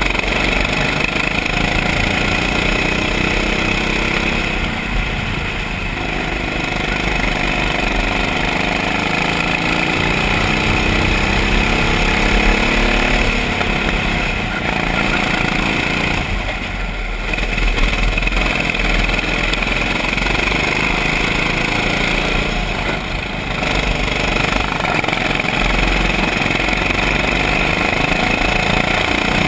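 Go-kart engine running hard, heard on board. Its pitch falls and climbs again three times as the driver lifts off and gets back on the throttle.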